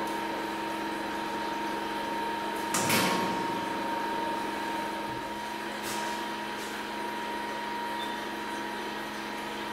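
Steady machine hum with a constant tone, with a single knock or clatter about three seconds in and a couple of faint brief sounds later.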